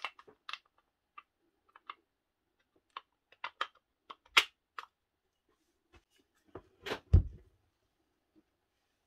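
Clicks and knocks of plastic and metal power-drill parts being handled and fitted together, with a sharp knock about four seconds in and a heavy thump about seven seconds in as the drill body is set down on the bench.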